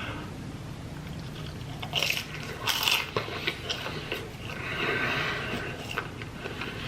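A person biting into a crispy fried egg roll and chewing it, with two loud crunches about two and three seconds in, followed by steady crunchy chewing.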